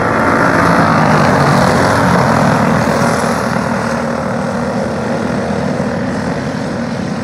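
Engines of a pack of small dirt-track race cars running together at speed, a steady buzzing drone that swells about a second in as they pass, then eases slightly as they move away.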